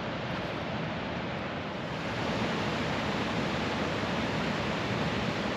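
Steady rush of a waterfall's falling water, a little louder from about two seconds in.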